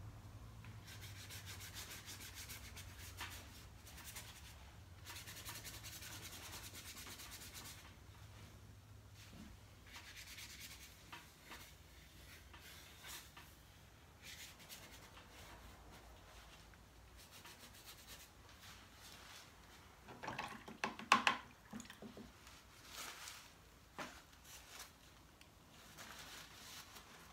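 Paintbrush scrubbing back and forth across paper, blending wet paint, in faint stretches of strokes. A brief cluster of louder knocks comes about twenty seconds in.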